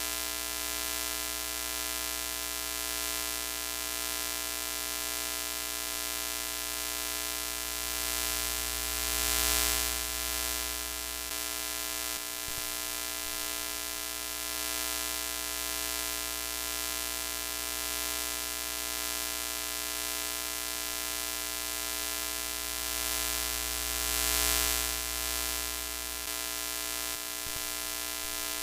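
Broken-TV sound effect: a steady electrical buzz over a hiss of static. It swells louder twice, about fifteen seconds apart, and drops out briefly a few seconds after each swell.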